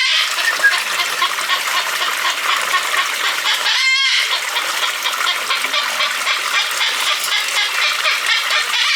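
Cockatoos squawking and chattering, a continuous run of harsh bird calls.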